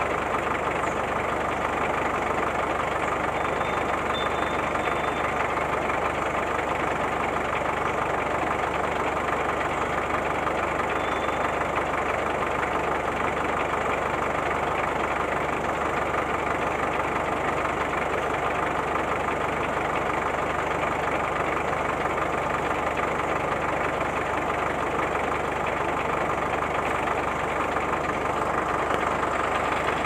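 Remote-control toy road roller running: a steady, unbroken engine-like noise with a faint low hum underneath, keeping the same level throughout.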